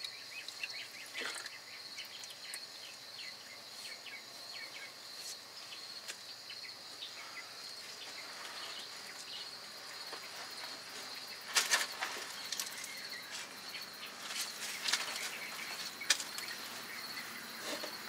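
Faint, steady high insect chirping, with scattered small clicks and knocks and a louder clatter about twelve seconds in.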